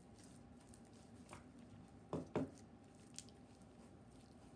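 Homemade glue slime being kneaded and squeezed by hand, giving faint sticky squishes, with two louder short squelches close together about two seconds in.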